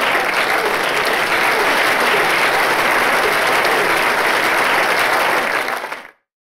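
Audience applauding steadily; the sound cuts off abruptly about six seconds in.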